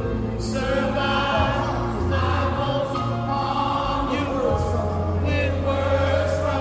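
Music with a choir singing over a steady bass line.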